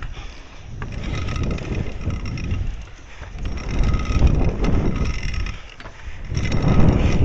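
Trikke carving scooter's wheels rolling over the concrete of a skatepark bowl, with wind buffeting the microphone. The rumble swells and fades about every three seconds as the scooter carves up and down the bowl.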